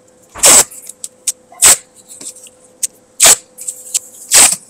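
Paper masking tape pulled off its roll in short, loud rips, four in all, about a second apart.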